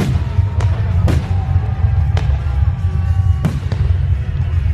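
Aerial firework shells bursting: about six sharp bangs in under five seconds, uneven in spacing, over a continuous low rumble.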